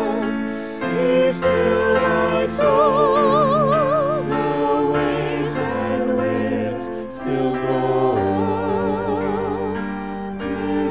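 A hymn sung by a lead singer with a strong vibrato over held chords and a bass line, the music pausing briefly between phrases.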